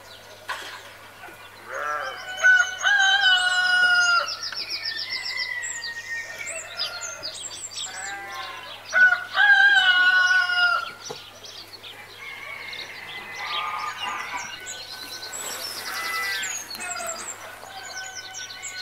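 Farmyard sound effects: a rooster crowing twice, near the start and about halfway through, with hens clucking and small birds chirping and trilling throughout.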